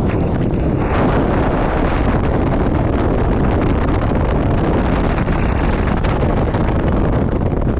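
Strong storm wind buffeting a GoPro's microphone: a loud, steady, low rumble that flutters throughout.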